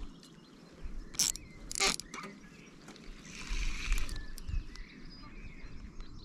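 Fishing reel and tackle being worked while a hooked fish is played in: two sharp mechanical clicks about a second apart, then a short stretch of whirring, rasping noise.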